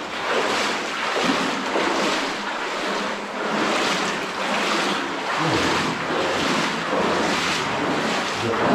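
Water sloshing and splashing as people wade through a flooded mine tunnel, in a steady rhythm of strides, roughly one every half second or so.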